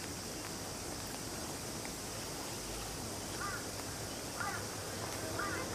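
A bird calling three times, about a second apart, over a steady outdoor background hiss.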